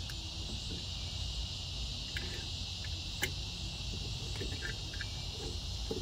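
Steady insect chorus, an even high-pitched hiss, with a few faint clicks from the clamp and wooden arm being handled, the clearest about three seconds in.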